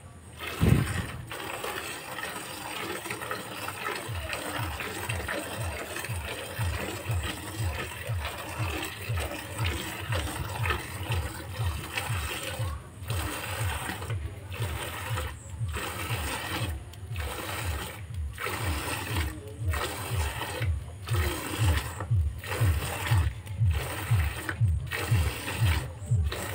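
Cow being milked by hand: streams of milk squirting into a bucket of frothy milk in a fast, steady rhythm of strokes, which settles in about four seconds in.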